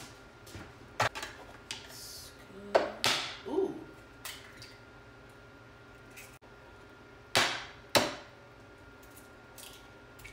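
Scattered knocks and clinks of glass and kitchen utensils being handled on a table, then two sharp taps about half a second apart in the second half: an egg being cracked over a mixing bowl.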